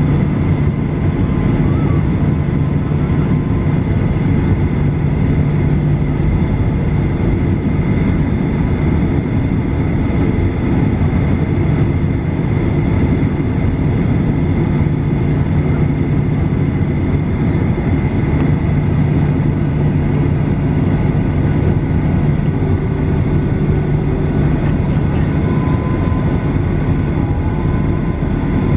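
Cabin noise of a Boeing 737-800 taxiing after landing: the CFM56-7B engines at idle give a steady rumble with a low hum and a faint high whine.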